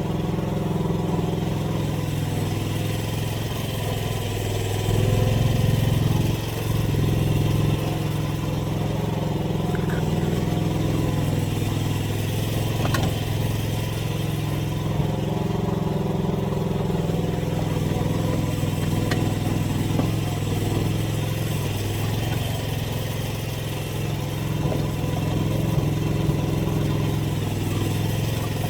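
Small gasoline engine of an AGT mini excavator running steadily while the machine works, growing a little louder for a couple of seconds about five seconds in, with a few faint knocks.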